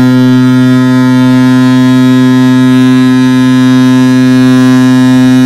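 KM Leuser's ship horn sounding one long, loud, steady blast, a deep note with many overtones, cutting off near the end. A single blast signals that the ship will sail in one hour.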